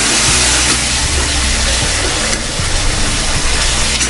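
Tomato-onion masala sizzling in oil in a steel pan while a steel ladle stirs and scrapes it, over a steady low hum. The masala is cooked down to the stage where the oil separates.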